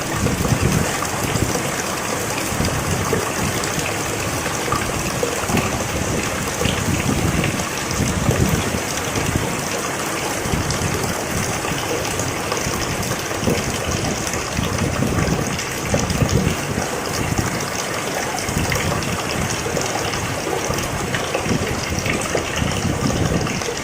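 Steady rain falling, a dense even hiss with an uneven low wash of water underneath.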